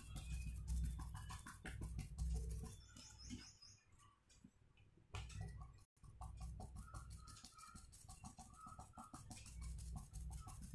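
Faint rapid tapping of a paintbrush dabbing paint onto paper, stippling tree foliage, with birds chirping now and then.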